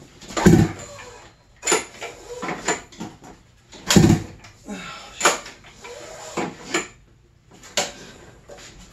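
Seven heavy thumps, roughly one every 1.2 seconds, with clatter between them: the recoil starter of a freshly rebuilt Arctic Cat 800 twin-cylinder two-stroke being pulled over and over. The engine turns over against strong compression without starting.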